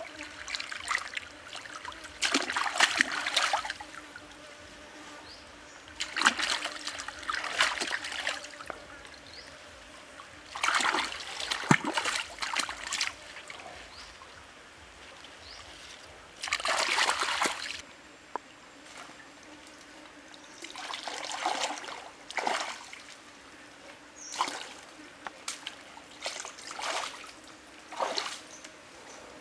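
Stream water splashing in repeated bursts a few seconds apart as bunches of leafy greens are swished and rinsed in it, with the shallow stream trickling between. Near the end the splashes turn shorter and come about once a second, like feet wading through the water.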